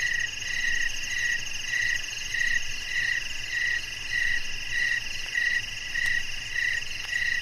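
Dusk ambience: a steady chorus of frogs and insects trilling, with one chirp pulsing about one and a half times a second.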